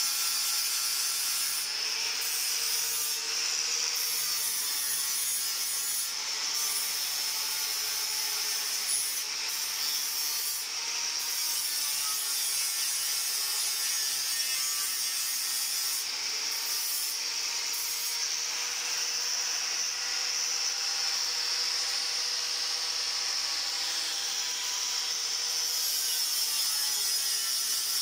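Handheld angle grinder running continuously, its disc grinding against the top of a stainless steel railing post. The sound is steady throughout, with its pitch wavering a little.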